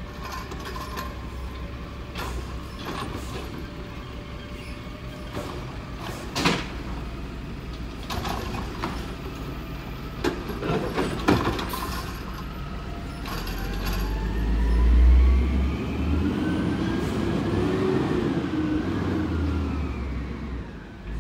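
Wayne Curbtender side-loader garbage truck working a curbside cart with its automated arm: engine running steadily, with sharp knocks and clanks about six seconds in and again around ten to eleven seconds as the cart is dumped. The engine then revs up with rising pitch, loudest about fifteen seconds in, as the truck pulls away.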